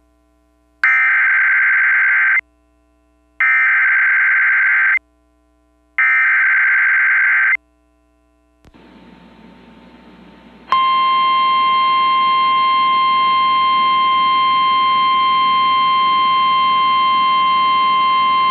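Emergency Alert System SAME header: three identical buzzy digital data bursts of about a second and a half each, with short gaps. After a brief hiss comes the long, steady single-pitch NOAA Weather Radio warning alarm tone, starting about ten seconds in, announcing a flash flood warning.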